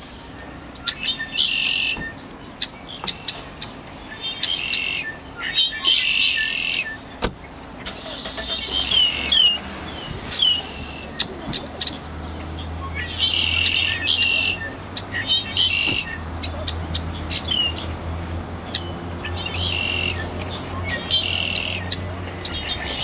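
A flock of red-winged blackbirds singing and calling: repeated harsh song bursts about a second long, mixed with short falling call notes. A low, steady vehicle engine rumble runs under them from about a quarter of the way in until near the end.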